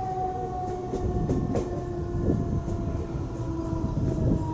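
Mumbai suburban electric local train (EMU) running along the track, heard from its open doorway: steady wheel-and-rail noise with a few sharp clicks over the rail joints, and a whine that sinks slowly in pitch.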